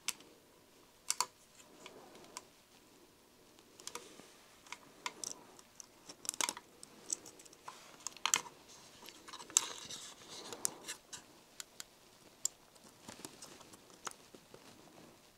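Irregular small clicks and taps, with a brief scraping rustle about two-thirds through, from handling a model locomotive tender and its wired 8-pin DCC decoder plug while trying to press the plug's pins into the socket, which won't go in.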